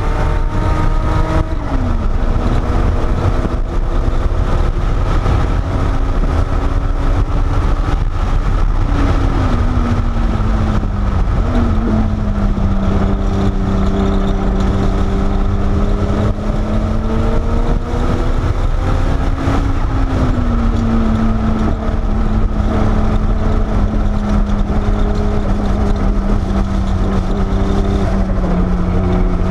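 Porsche 930 Turbo's air-cooled turbocharged flat-six under load, heard inside the cabin, its note climbing slowly and dropping several times with shifts and lifts over steady road and wind rumble. The car is running with its exhaust header slip joints freshly repaired to cure leaks and lost boost.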